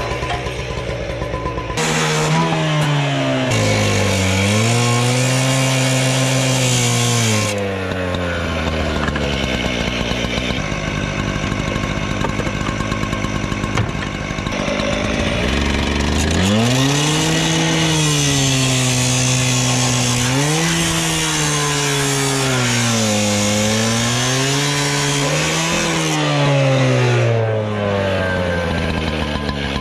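Two-stroke gas cut-off saw running at high revs, its engine pitch rising and dipping as the abrasive disc bites into the steel truck frame, with a harsh grinding hiss from the cut. The cutting eases for several seconds mid-way, then the saw speeds up and cuts again before backing off near the end.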